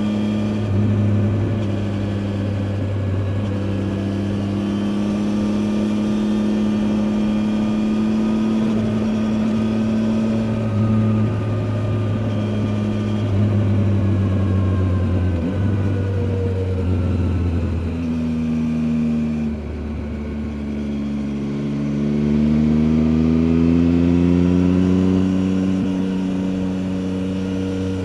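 Triumph Tiger 800 XCA's 800 cc three-cylinder engine running as the motorcycle is ridden, its pitch holding steady with a few sudden steps up and down. Near the end the revs drop, then climb steadily as it accelerates.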